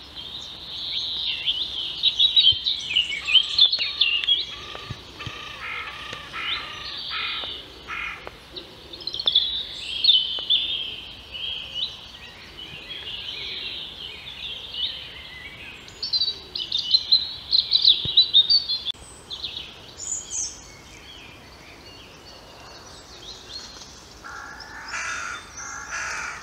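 Several songbirds singing, with short, varied phrases overlapping and following one another, and a lower-pitched call near the end.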